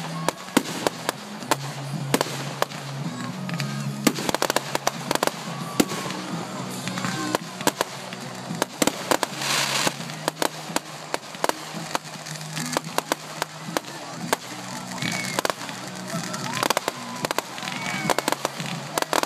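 Fireworks going off in quick succession: many sharp bangs and crackles overlapping throughout, with a brief hissing burst near the middle.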